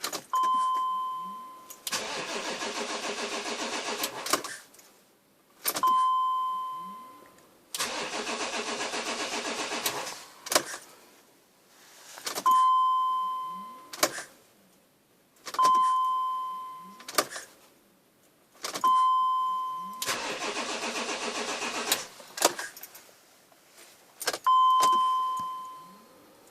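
BMW X5 E53 diesel engine being cranked by the starter three times, each for a couple of seconds with an even pulsing, and never firing: the engine gets no diesel because the electric fuel feed pump is dead and gives no buzz. Between the attempts a dashboard warning chime sounds six times, a single tone each time that fades away, with clicks from the ignition key.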